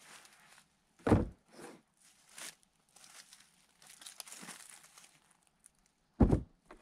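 Split firewood being handled and laid on a plastic tote cap cut from an IBC bladder: two heavy thuds of wood set down, about a second in and near the end, with crinkling and scraping of the plastic and light wood clatter between.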